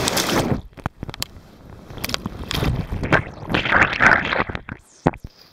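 Loud whitewater rushing, cut off abruptly about half a second in as the boat capsizes and the camera goes under. Then muffled underwater churning and gurgling in uneven surges with scattered knocks, and two sharp knocks near the end.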